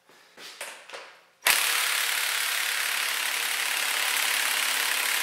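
Impact wrench hammering on an engine's crankshaft bolt, a loud steady rattle that starts about a second and a half in, without breaking the bolt loose.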